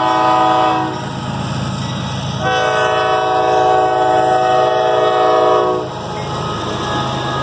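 CSX diesel locomotive's multi-chime air horn sounding for a grade crossing: a short blast, then a long blast of about three seconds. Under the horn the locomotive's diesel engine and the train rumble steadily as it passes close by.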